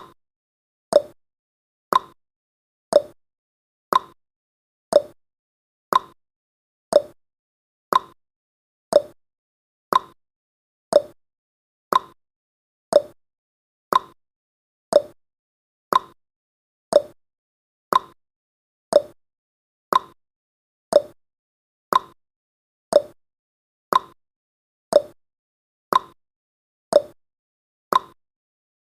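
Countdown timer's ticking sound effect: one short, sharp tick every second, alternating slightly higher and lower in pitch like a clock's tick-tock.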